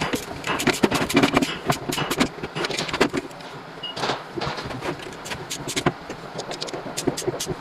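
Quick, irregular clicks and knocks from hand tools and metal parts while a truck alternator is reassembled.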